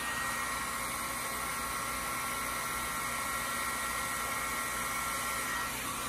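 Handheld hair dryer blowing on a styled wig: a steady rush of air with a whine from its motor. Near the end it is switched off and the whine winds down.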